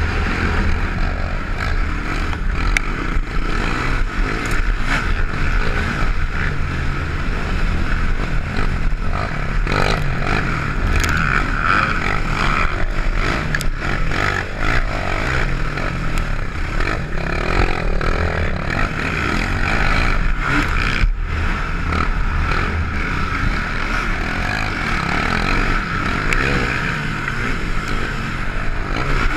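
Can-Am DS450 race quad's single-cylinder four-stroke engine running hard at racing speed, heard from the rider's helmet, with scattered sharp clicks as dirt and small stones strike it.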